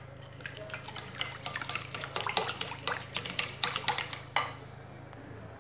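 Hand whisk beating a thin egg-and-milk liquid in a glass bowl: rapid wet sloshing with quick clicks of the whisk against the bowl, growing busier after a second or so and stopping near the end.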